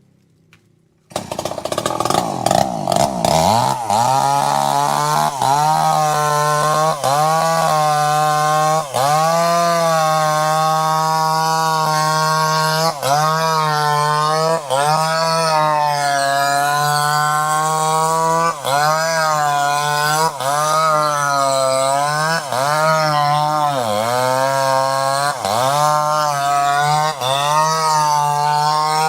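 Two-stroke chainsaw engine running at high revs, starting abruptly about a second in. Its pitch dips briefly and recovers every second or two.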